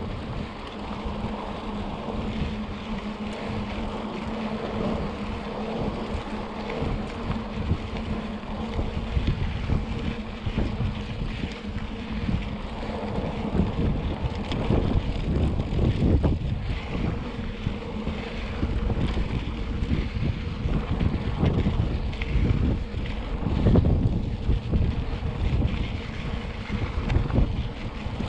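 Wind buffeting the microphone over the rolling rumble and rattle of a mountain bike on a dusty dirt road. Short knocks from bumps come more often in the second half.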